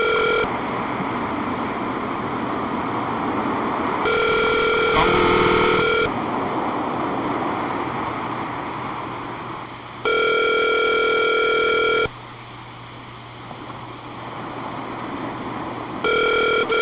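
Telephone ringback tone of an outgoing call, heard over the phone line: a steady two-second ring repeating about every six seconds, with line hiss in the gaps. The call is ringing unanswered.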